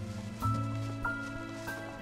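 Background music: a soft score of held notes over a deep bass, moving to a new note about every half second.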